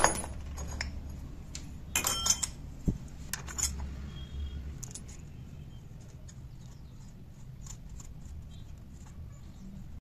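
Scattered light metal clinks and taps from handling scooter CVT parts by hand as the aluminium cooling fan is seated on the variator pulley and its nut fitted, with one dull knock about three seconds in.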